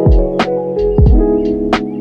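Background music with a steady beat: low drum hits about once a second alternating with sharp snare-like strikes, under sustained chords, with no singing.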